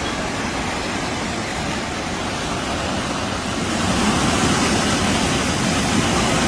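Floodwater rushing, a steady loud noise that grows a little louder about four seconds in.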